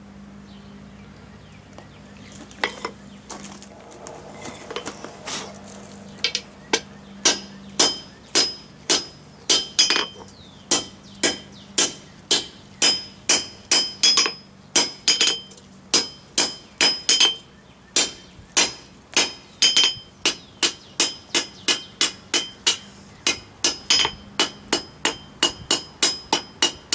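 Blacksmith's hammer striking steel on an anvil: a few scattered blows at first, then a steady rhythm of about two ringing strikes a second.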